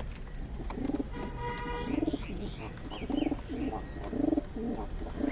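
Domestic pigeons cooing: a continuous run of low, short coos repeating about every half second, with faint high chirps over them.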